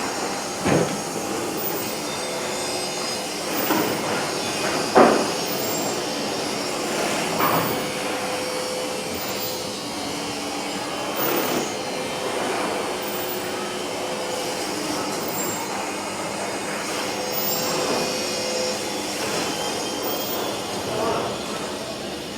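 Factory floor noise on a power adapter assembly line: a steady machine hum with a few sharp clicks and knocks, the loudest about five seconds in.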